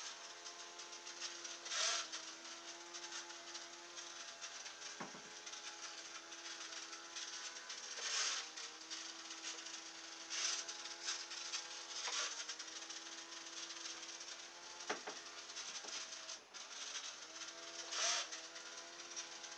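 Small brushed quadcopter motor spinning the air propeller of a toy fan boat, a steady whine whose pitch shifts a few times, with several brief louder hissing rushes. The motor sounds weak, which the owner takes for its batteries running down.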